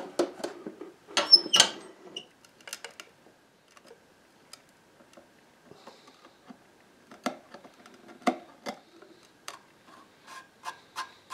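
A few louder knocks as the clamped wooden box and its clamp are handled in the first two seconds, then irregular light clicks and taps of a steel chisel picking and scraping at old veneer and glue along the box's edge.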